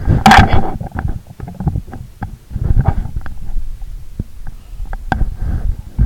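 Typing on a computer keyboard close to the microphone: a string of sharp key clicks with dull low thumps, and a short rush of noise just after the start.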